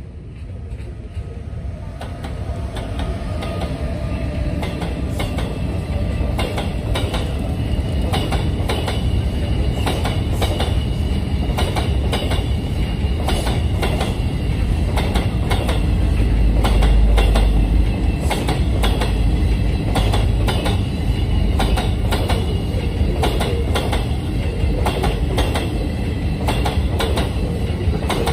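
A passenger train of vintage Wagons-Lits carriages hauled by an electric locomotive rolls past. The wheels click over rail joints and points, over a heavy rumble with a thin high wheel squeal. It swells over the first few seconds as the train draws near, then stays loud and even.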